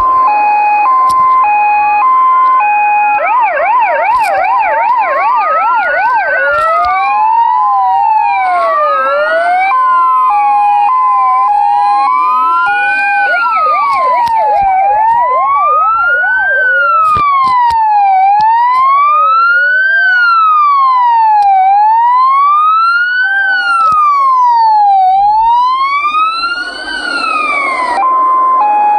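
Polish police siren cycling through its tones: a two-tone hi-lo alternation, a fast yelp, and a slower wail rising and falling about every second and a half. A second siren's sweeps cross it at times, and the hi-lo two-tone comes back near the end.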